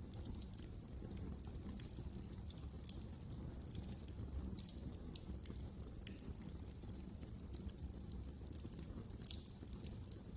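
Wood fire crackling in a fireplace: frequent irregular sharp pops and snaps, a few louder ones, over a steady low rumble of the burning fire.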